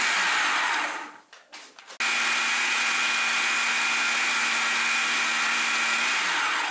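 Russell Hobbs food processor pulsing chhana and sugar. A short burst at the start winds down within a second. A second, longer run starts suddenly about two seconds in, holds a steady motor whine for about four seconds, then spins down to a stop near the end.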